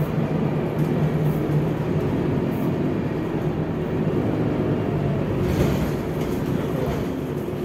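Scania DC9 five-cylinder diesel engine of a city bus running steadily under way, heard from inside the cabin as an even hum.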